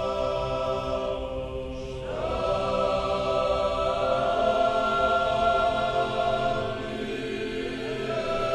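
Church choir singing Orthodox chant in long held chords, moving to new chords about two seconds in and again midway.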